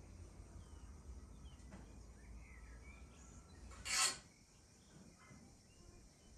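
Faint rural outdoor ambience with scattered bird chirps over a low rumble, broken about four seconds in by one brief, sharp rasping rustle, the loudest sound.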